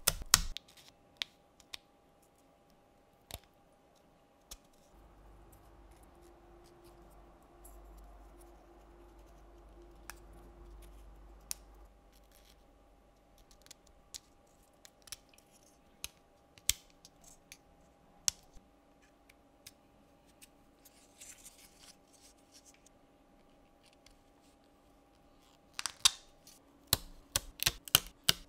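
Sharp wooden clicks and snaps of thin laser-cut plywood parts being pressed out of their sheet and fitted together. A quick run of snaps comes at the start and again near the end, with single clicks scattered in between.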